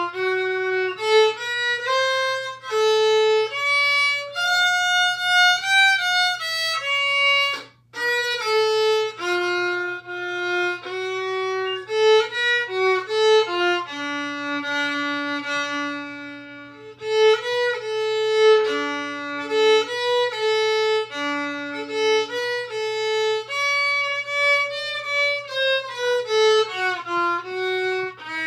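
Solo violin playing a slow, calm Irish waltz tune, a single bowed melody of held notes. It breaks off briefly about a quarter of the way in, and a long low note is held near the middle.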